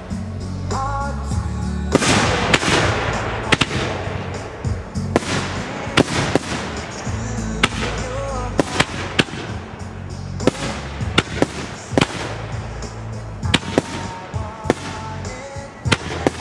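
Kometa Jocker firework (P7875) firing a series of sharp bangs, irregular and about one a second, with a hissing burst after some of them. Background music with a steady low beat plays under them.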